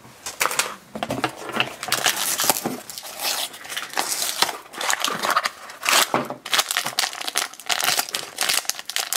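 A cardboard blind box being torn open and the foil bag inside crinkled and torn in the hands: a busy run of crackles and rips.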